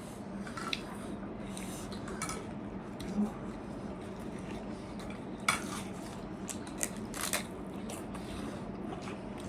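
Eating utensils clinking and scraping against plates and bowls, a scatter of light clicks with sharper clinks about five and a half and seven seconds in.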